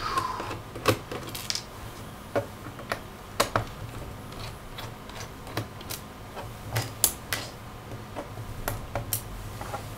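Irregular light clicks and taps of a small Phillips screwdriver and loose screws against the plastic bottom case of an ASUS F453M laptop as the bottom-panel screws are taken out.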